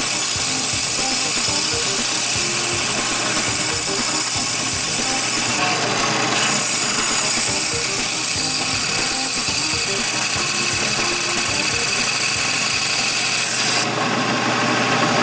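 Diamond Aqua Saw, a small diamond-blade band saw for cutting coral in water, running steadily with a high whine as its blade cuts through a coral. Near the end the high whine cuts off abruptly.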